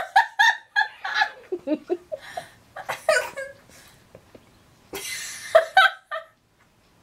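A woman laughing in short broken bursts, with a long breathy rush of air about five seconds in; it goes quiet near the end.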